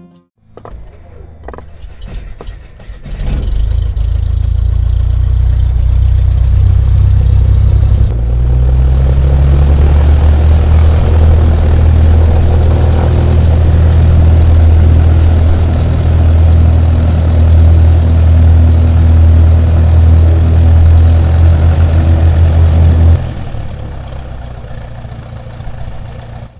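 Dubbed-in sound effect of a propeller airplane engine starting up a few seconds in. It runs steadily and steps up louder a few seconds later, then falls much quieter near the end.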